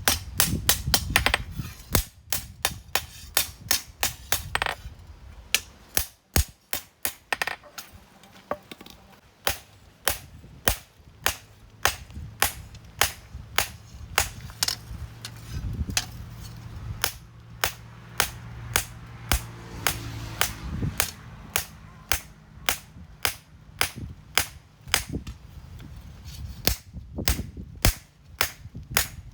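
Hand hammer striking steel on an anvil in repeated sharp blows, about two a second, as a knife blade is forged.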